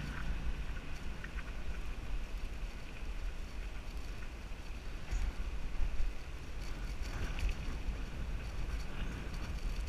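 Wind buffeting the microphone of a GoPro riding on a moving bicycle: a steady, fluttering low rumble, with a few faint clicks.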